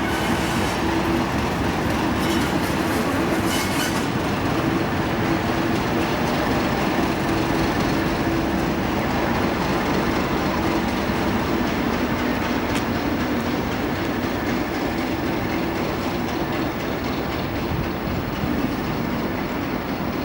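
Diesel-hauled train running steadily along the line: a continuous rumble of wheels and track under a steady low engine tone.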